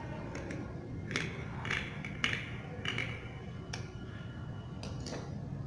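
Large fabric scissors cutting through a folded terry-cloth towel: a string of short snips, about one every half second to second.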